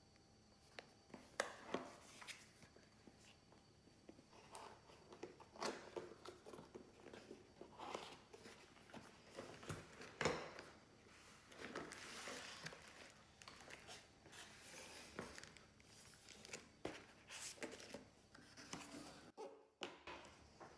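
Cardboard packaging being handled and opened by hand: irregular taps, knocks and scrapes of the box and its flaps, with a longer stretch of rustling about halfway through.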